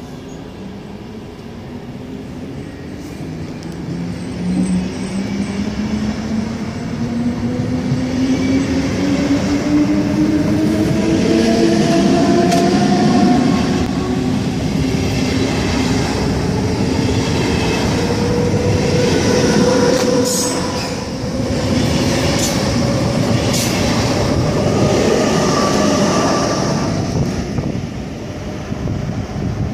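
Electric SBB Re 460 locomotive pushing a double-deck passenger train away from the platform. The whine of its traction drive climbs steadily in pitch as the train accelerates, over a rumble of wheels on rails. The sound grows louder as the locomotive draws near, and a few sharp clicks come about two-thirds of the way through.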